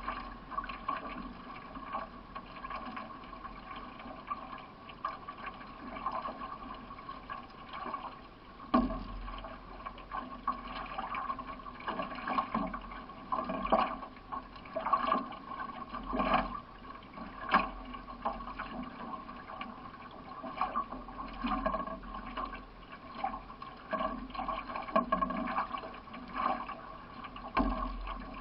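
A single paddler's strokes in a C1 racing canoe: the paddle splashes into the water about every second and a half, over steady water noise around the hull.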